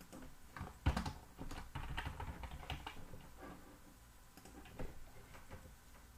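Typing on a computer keyboard: quick, irregular key clicks for about the first three and a half seconds, the loudest about a second in, then a few isolated keystrokes.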